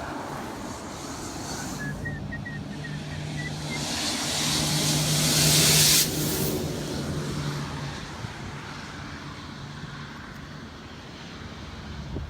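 Military convoy truck driving past on the road: a steady engine hum with a rush of tyre and wind noise that builds to a peak and cuts off suddenly about six seconds in, after which a quieter engine hum goes on.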